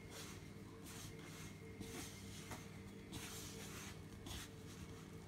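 Hand kneading crumbly biscuit dough against a wooden bowl: faint scratchy rubbing strokes, about one a second.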